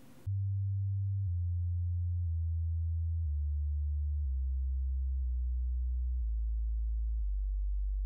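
A deep, steady electronic sine tone that steps down in pitch about once a second, starting just after a brief hush.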